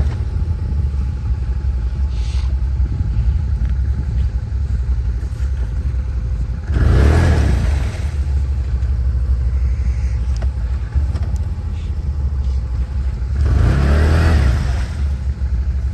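Quad bike engine running under load as the ATV, stuck in mud, tries to drive out, with two louder revving surges about seven and fourteen seconds in.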